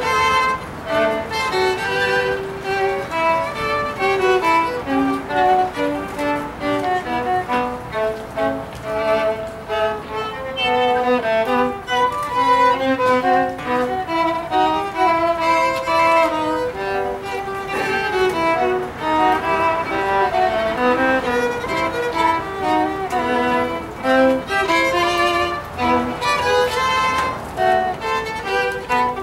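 A violin duet: two violins bowed together, one carrying the melody over the other's second part, in a string performance.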